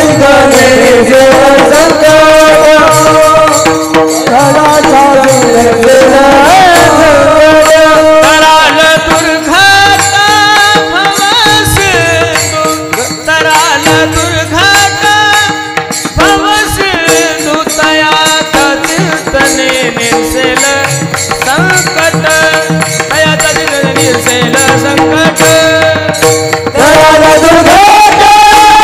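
Male voice singing a Marathi devotional kirtan melody in long, gliding held notes, accompanied by a drum and small brass hand cymbals (talas) keeping time. The music gets louder near the end.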